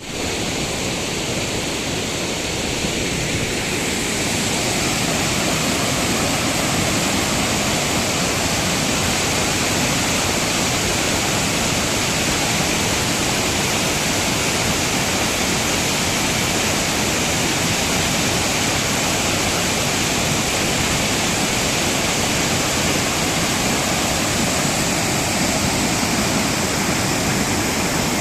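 Waterfall pouring: a steady, unbroken rush of falling water that grows a little louder over the first few seconds and then holds even.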